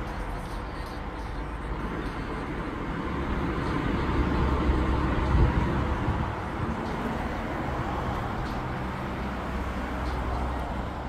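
Street traffic noise: a steady rumble of road vehicles, swelling as one passes near the middle and fading again.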